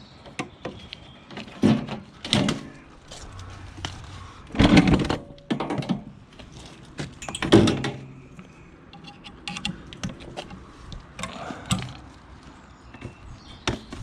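Irregular knocks, thuds and clatter of objects being handled, with the two heaviest thuds about five and seven and a half seconds in.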